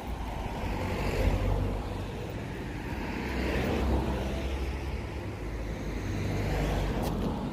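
Road traffic: cars passing one after another, three swells of tyre and engine noise that rise and fade over a low rumble.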